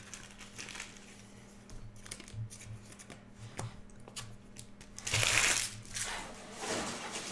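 Light handling of trading cards, then the foil wrapper of a Topps Star Wars card pack crinkling loudly as it is picked up and handled, about five seconds in, with a smaller crinkle near the end.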